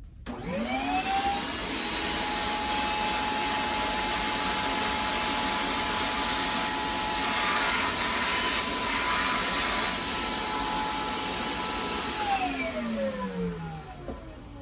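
HEPA vacuum switched on, its motor spinning up with a rising whine and then running steadily with a loud airflow hiss that swells for a few seconds midway. About twelve seconds in it is switched off and winds down, the whine falling in pitch.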